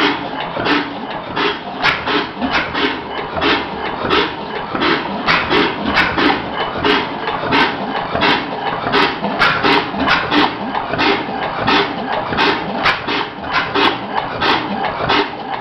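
Early Crossley four-stroke overhung-crank slide-valve engine running slowly, with a steady, slightly irregular clatter of clicks and knocks, two or three a second, over a constant mechanical noise.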